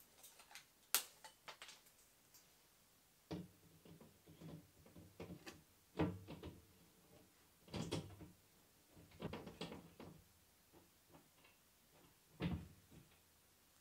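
Black metal wire storage baskets clinking and knocking as they are handled and held up against a wall, in scattered short clatters and knocks.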